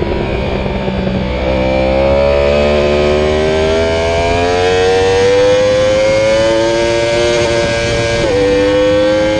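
Sport motorcycle engine at speed on a track, heard from on the bike with wind rushing over the microphone. The engine note dips a little, then rises steadily for several seconds as the bike accelerates hard out of a corner, and near the end drops suddenly with an upshift before climbing again.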